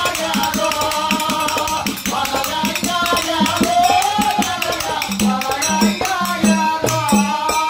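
Folk song with small hand cymbals struck in a fast, steady beat under a wavering sung melody. Regular drum beats join in about five seconds in.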